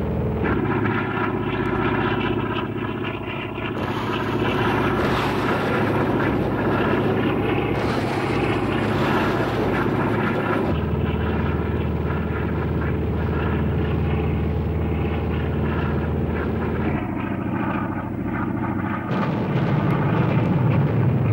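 Propeller aircraft's piston engine droning steadily, its tone changing abruptly a few times.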